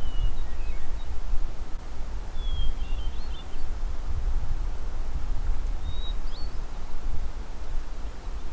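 Wind buffeting the microphone with a gusting low rumble, over which a small bird gives a few faint chirps: once near the start, a short run a little before the middle, and again past the middle.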